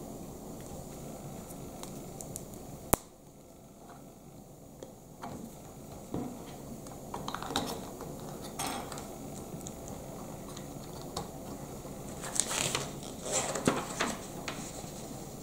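Plastic Lego bricks clicking and clattering as they are handled and pressed together: one sharp click about three seconds in, then clusters of small clicks near the middle and again near the end.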